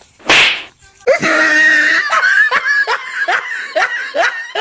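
A brief sharp noise, then from about a second in loud laughter: a rapid ha-ha-ha of about four laughs a second.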